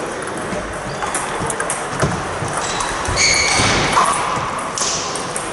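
Table tennis hall ambience: scattered clicks of ping-pong balls from nearby tables over a steady background of the room's noise, with a short high squeak about three seconds in.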